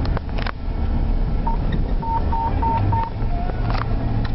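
Vehicle engine and road rumble heard from inside the cab. About a second and a half in comes a quick run of five short electronic beeps at one pitch, followed by a single lower tone, with a couple of sharp clicks near the start and end.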